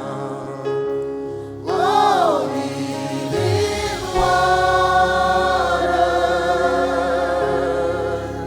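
Gospel choir singing live worship music over sustained chords, with a quick rising-and-falling vocal phrase about two seconds in, then long held notes.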